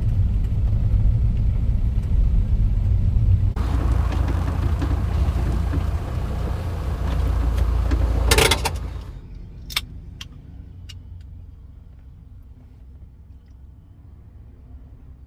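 A car on the move: a steady low rumble, which gets rougher and noisier a few seconds in. It ends in a loud crackle at about eight seconds, then falls away to a faint background with a few sharp clicks.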